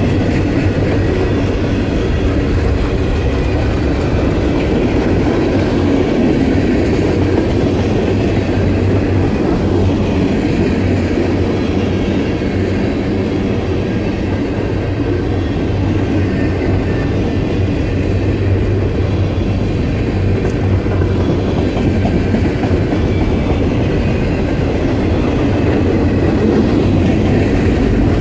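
Freight train cars (tank cars, boxcars and covered hoppers) rolling past close by: a steady, loud rumble of steel wheels on the rails.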